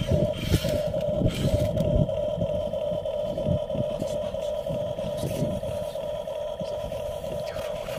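Electric motors and gears of a Huina radio-controlled excavator whining steadily as its boom and bucket move, over a low, uneven rumble.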